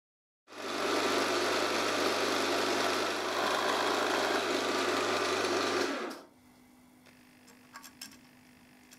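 Electric drill running steadily under load, drilling a hole in the red cover, for about five and a half seconds before it stops. A few light clicks follow near the end as a screw is driven in by hand.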